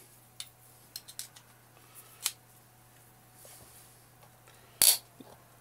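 Scattered light clicks and taps of hard plastic and metal as freediving-fin parts and tools are handled on a worktable, with one louder clack about five seconds in.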